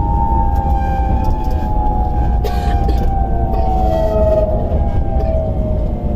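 Enoden 500 series electric train's traction motors whining as it slows into a station: several steady tones sliding slowly down in pitch over a low rumble of wheels on the rails. A short clatter about two and a half seconds in.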